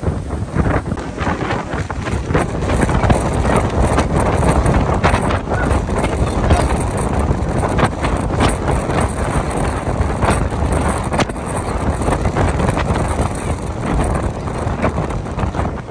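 Strong hurricane wind blowing hard across the microphone in constant gusts, over the noise of rough surf breaking along the seawall.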